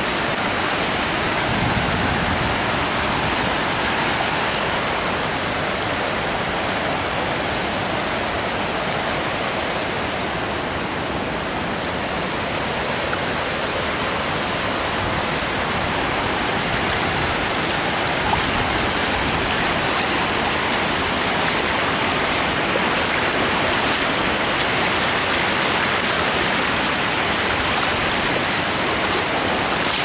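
Water spilling over a low masonry dam and running across the rock shoals below: a steady, even rush of falling water.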